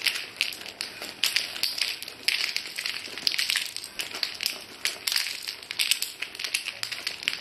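Clear plastic bag crinkling as hands rummage in it, with painted domino blocks clicking against one another in quick, irregular clusters.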